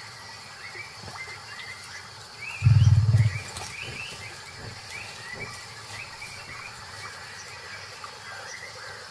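A tiger's short, deep growl about three seconds in, the loudest sound, over a background of repeated short rising chirps.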